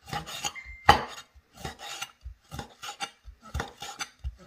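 Stainless steel cleaver slicing cooked pig ears into strips, each stroke knocking down onto a wooden cutting board, about two strokes a second with the loudest about a second in.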